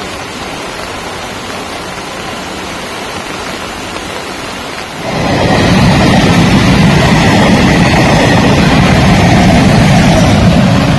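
Steady rain hissing, then about five seconds in a passenger train passes close by with a loud, even rumble of wheels on rails that drowns out the rain.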